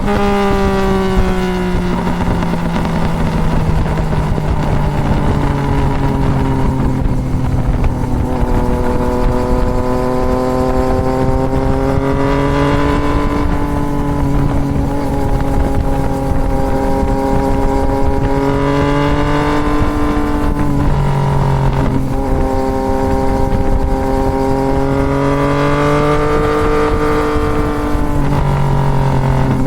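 2024 Yamaha MT-09's inline-three engine through a full Toce exhaust, under way: the engine note falls as the throttle closes near the start, climbs slowly through the middle and drops in steps at gear changes near the end. Steady wind rush runs underneath.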